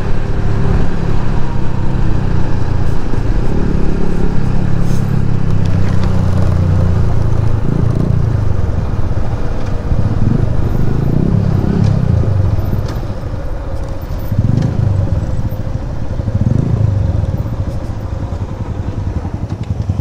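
Motorcycle engine running under way, heard from the bike itself. It runs steadily at first, then its pitch rises and drops several times in the second half as the rider opens and closes the throttle.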